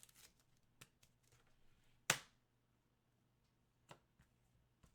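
Trading cards being handled on a table: faint soft clicks and rustles, with one sharp snap about two seconds in and a lighter click near the end.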